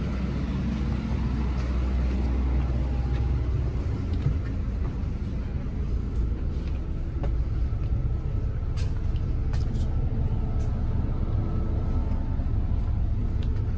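Coach bus engine idling, a steady low rumble heard from inside the cabin, with a few light clicks near the end.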